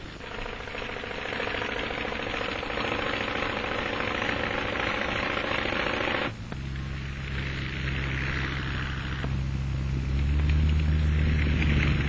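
Fleetwings Sea Bird amphibian's Jacobs radial engine and propeller running with a steady drone. About six seconds in, the sound cuts abruptly to a deeper, steady hum, which grows louder near the end.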